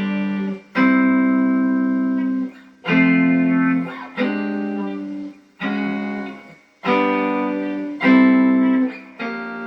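Guitar playing an instrumental passage: a chord is struck roughly every one to two seconds and left to ring, about seven chords in all.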